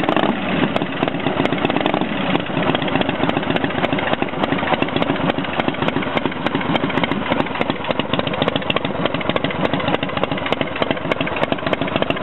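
Freshly rebuilt motorcycle engine idling steadily on choke just after its first start, still a little cold. It runs evenly and sounds healthy.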